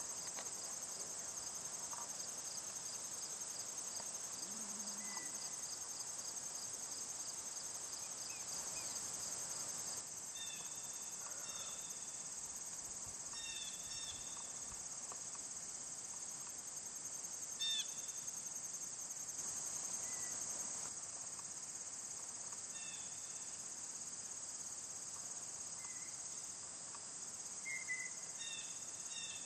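Steady high-pitched trilling of insects, cricket-like, running without a break. From about ten seconds in, a bird gives short chirps at intervals, several more near the end.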